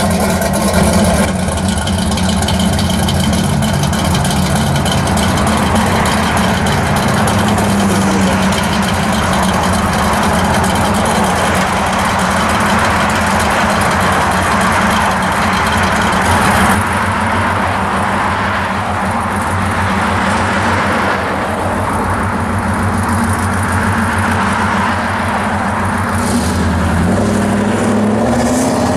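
Engine of a 1966 Chevy II Nova pro street car running loudly at a low, steady idle as the car creeps along. Near the end it starts to rev up, rising in pitch, as the car pulls out to accelerate.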